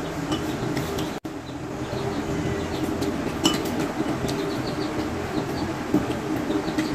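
A steady droning hum with scattered small clicks of chopsticks and spoons against bowls while people eat; the sound drops out briefly about a second in.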